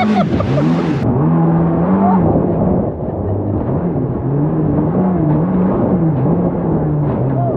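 The Yamaha engine of a Corvette-bodied jet boat, running hard with its pitch rising and falling as the throttle changes, sounding dull and muffled. A brief shout or laugh comes right at the start.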